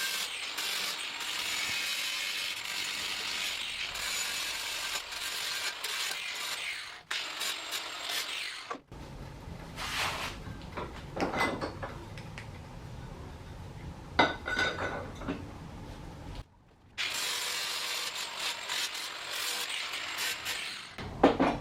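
Metal being worked with hand or power tools: a steady abrasive hiss for the first several seconds and again near the end, with scattered clicks and clanks in between.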